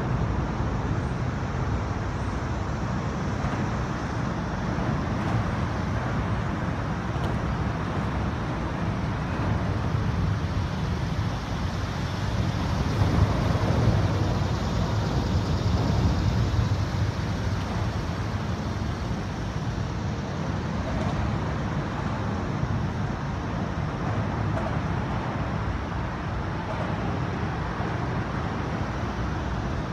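Steady road-traffic rumble from the highway overpass overhead, swelling a little around the middle.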